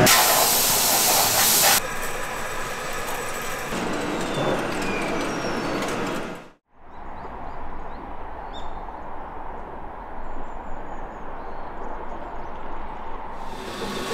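Ceramics-factory machine noise with a loud hiss for about the first two seconds. About halfway through it cuts to a steady low outdoor rumble with a few faint bird chirps, and factory noise returns near the end.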